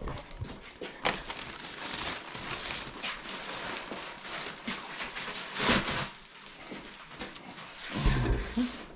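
Plastic bag rustling and crinkling as a vacuum pump is worked out of it, with a louder rustle about two thirds of the way in and a few knocks of the pump being handled on a table.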